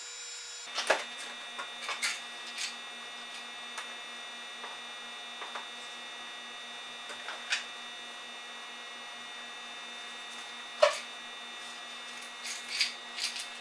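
Steady electrical appliance hum, with scattered clicks and knocks from kitchen cabinet doors and household items being handled; the sharpest knock comes near the end.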